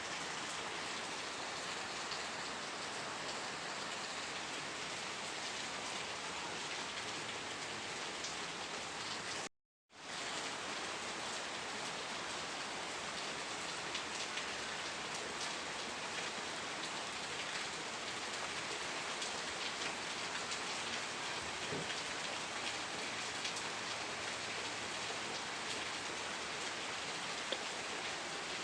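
Steady rain falling, a dense even wash of drops with fine individual ticks. About ten seconds in it cuts out to silence for about half a second, then resumes.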